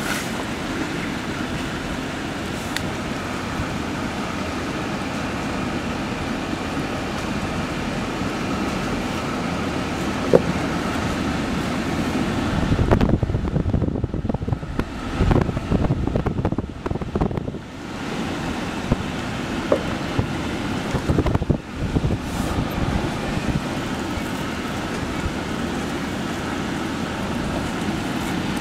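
Jeep engine running at low speed as the vehicle crawls along a rocky off-road trail, heard from inside the cab. For a few seconds about halfway through, the noise turns louder and uneven.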